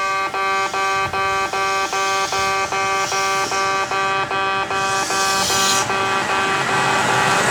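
Kintetsu station level-crossing alarm sounding its buzzy 'bee-bee-bee' beep, about three beeps a second. About two-thirds of the way in, the rushing noise of an approaching train grows over it.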